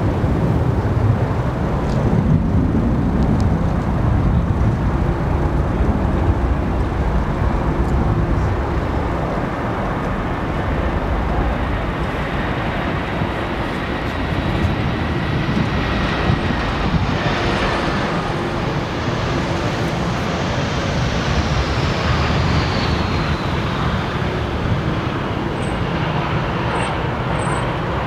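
Jet engines of an easyJet Airbus A320-family airliner on final approach and landing in a strong crosswind: a steady jet rumble, with a high whine that slides down in pitch from about twenty seconds in as the aircraft passes.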